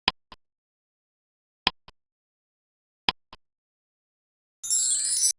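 Countdown timer sound effect: a tick-tock of a sharp click followed by a softer one, repeating about every second and a half, three times. Near the end a bright shimmering chime comes in, marking time up before the answer.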